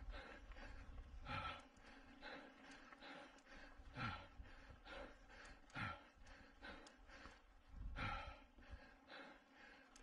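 A cross-country mountain bike racer breathing hard under race effort, with a heavy, partly voiced exhale about every two seconds over a faint steady rumble.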